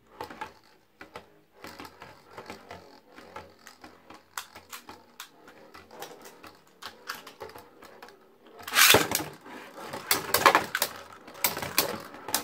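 Beyblade Burst top spinning on a plastic stadium floor, a steady patter of small clicks as it scrapes and wobbles. About nine seconds in a second top is launched with a loud ripping burst, and the two plastic tops then clash with sharp clacks.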